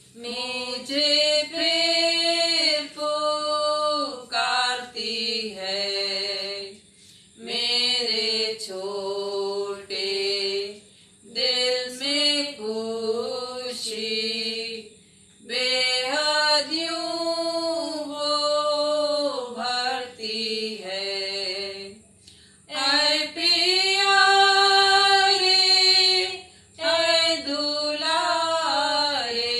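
Two women singing a Hindi Christian song together without accompaniment, in phrases with short pauses for breath between them.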